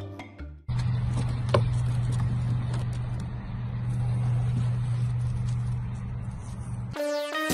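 A steady low mechanical hum over a hiss of background noise, with a single short click about a second and a half in. Background music fades out just before the hum starts and comes back in near the end.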